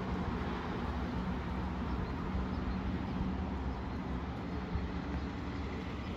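Heavy diesel truck traffic on the road: a steady low engine drone with rumble.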